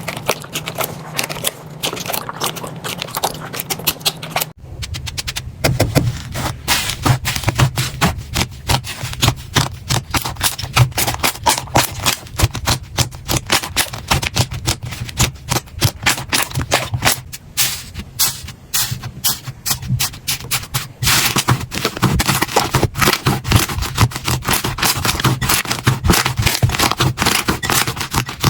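Slime being squeezed and poked by hand, making fast, irregular runs of crackling and popping clicks. The sound changes abruptly twice.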